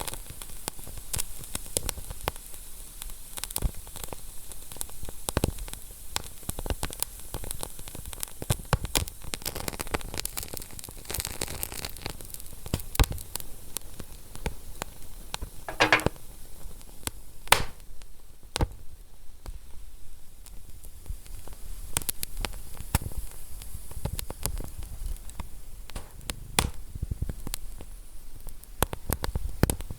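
Wood fire crackling in a fireplace: a steady hiss dotted with frequent small snaps, and two louder pops a little past halfway.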